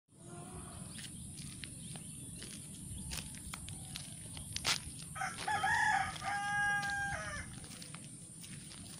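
A rooster crows once, a call of about two seconds ending on a long held note, about five seconds in. Under it run a steady low rumble and scattered light clicks.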